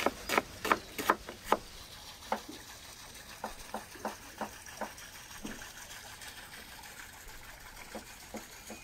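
Water splashing and dripping in a run of short separate plops, quick at first, then sparser and fainter.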